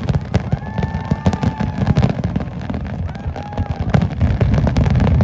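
Fireworks display: many shells bursting in quick succession, with dense crackling over a continuous low rumble and a few faint whistles above it.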